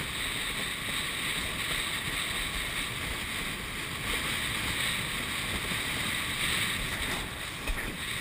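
Steady rush of water streaming under a fast-moving windsurf board, mixed with wind on the microphone.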